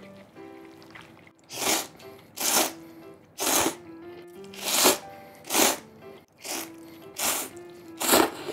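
A man slurping buckwheat soba noodles, about eight short, loud slurps a little under one a second, starting about a second and a half in. Light background music with sustained notes plays underneath.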